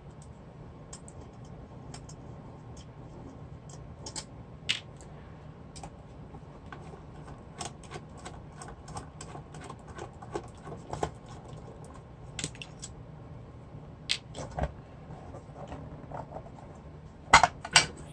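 Small screwdriver turning out screws from an aluminium amplifier case: scattered light metallic clicks and ticks. Near the end comes a cluster of louder knocks as the case halves are handled and pulled apart.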